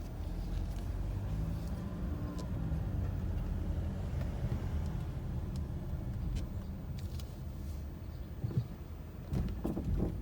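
2017 Mazda CX-9 driving with a steady low road rumble, then several knocks near the end: the suspension clunk it makes over speed bumps, which is still there after the dealer replaced the lower control arm.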